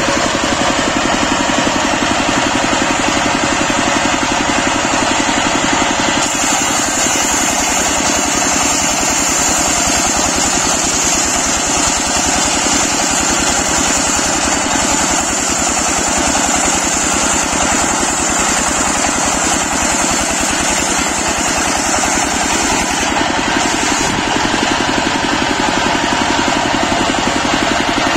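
Stationary single-cylinder diesel engine running steadily, belt-driving a circular saw. From about six seconds in to about twenty-three seconds a high, hissing whine rides over it as the blade cuts along a teak log.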